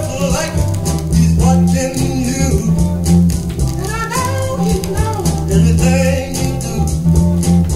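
A gospel blues 45 rpm record playing on a turntable: a gospel vocal group singing over a band with a strong, steady bass line.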